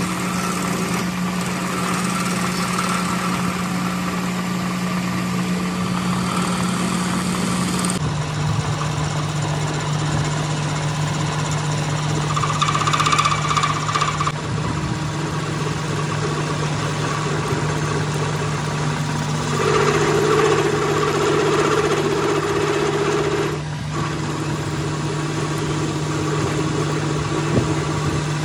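Metal lathe running with a steady motor hum while a tool bit faces and turns down the end of a steel CV drive shaft. In a few louder stretches, about halfway through, again later and near the end, the cut carries a ringing tone.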